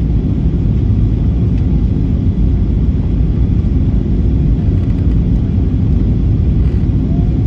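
Steady low rumble inside a Boeing 737-800's cabin during its descent to land: engine and airflow noise heard from a seat over the wing.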